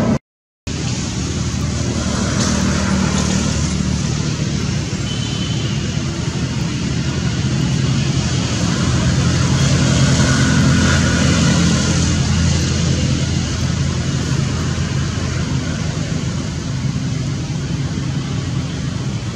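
Steady low rumble of road traffic with a humming engine note, swelling a little about halfway through. The sound cuts out completely for half a second right at the start.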